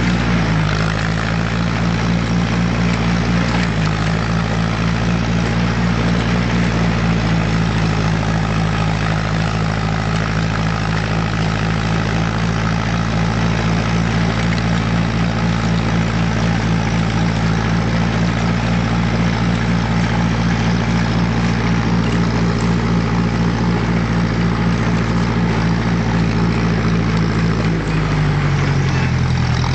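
Ferguson FE35 tractor's four-cylinder engine running steadily, with its revs dropping near the end.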